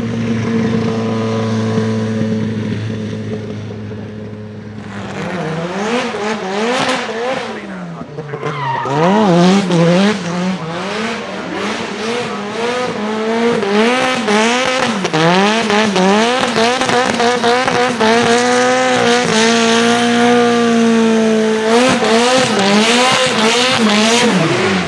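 Turbocharged Nissan SR20 four-cylinder in a Mazda RX-7 FD3S drift car, fitted with an external wastegate screamer pipe. It runs at a steady note at first, then is revved hard up and down over and over while the tyres squeal through the slide and burnout. Near the end it holds high revs for a few seconds before the revs drop.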